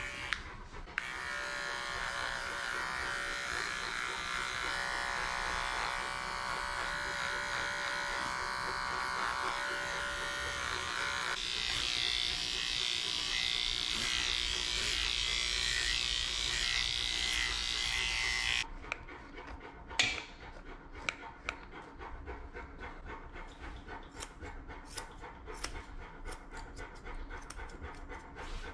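Electric dog-grooming clippers buzzing steadily as they shave a Newfoundland's paws, the tone changing about eleven seconds in. The clippers cut off at about 19 seconds, leaving the dog's panting and small clicks of scissors trimming the paw.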